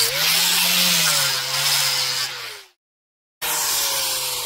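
DeWalt angle grinder with a 40-grit sanding disc grinding on carved wood. Its whine wavers as it is worked over the surface. After a sudden gap of silence under a second long, the whine falls slowly and fades as the disc spins down off the wood.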